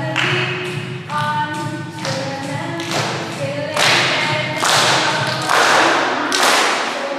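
Music with a heavy beat, about one hit a second, under a pitched melody; the beat grows louder and fuller after about four seconds.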